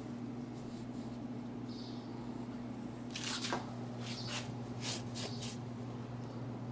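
Steady low electrical hum, with a handful of short rustling, scraping handling noises in the middle.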